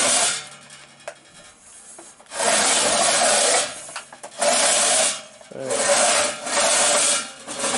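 A steel inner tube being slid back and forth through a welded steel main tube, metal scraping on metal in about four long strokes, starting about two seconds in. It is a test fit: the tube still slides despite slight misalignment from weld warping.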